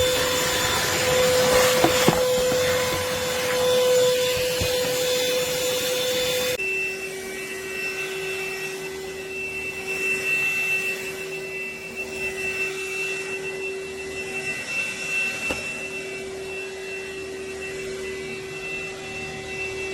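Akitas V8 cordless stick vacuum running with a steady motor whine and airflow noise. About six and a half seconds in, the sound changes abruptly to a quieter, lower-pitched whine, which then holds steady.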